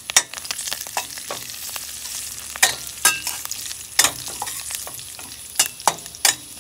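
Cumin, mustard seeds and curry leaves sizzling in hot oil in a stainless steel kadai for a tempering, stirred with a metal spoon. Sharp clicks cut through the steady hiss about once or twice a second.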